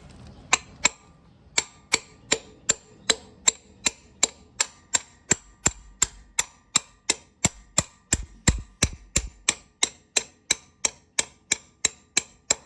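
Steady hammer blows, about three a second, on a metal rod driven into a bread-packed pilot bearing bore, each strike ringing sharply. The blows are forcing the old bearing out of the crankshaft.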